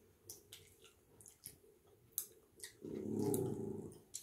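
Faint wet mouth clicks and smacks of a child chewing soft gummy candy, then a low hum lasting about a second near the end.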